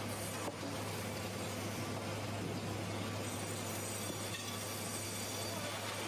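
Sawmill band saw and its machinery running steadily as a timber slab is fed through, a constant low hum under a noisy rumble.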